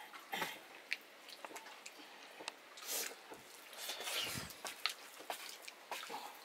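Quiet eating by hand: fingers squishing corn rice and nettle curry together on steel plates, with small scattered clicks against the plates and chewing.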